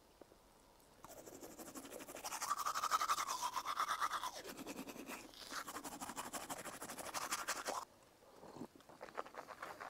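Manual toothbrush scrubbing teeth in rapid back-and-forth strokes, starting about a second in, easing briefly midway, and stopping abruptly near the end.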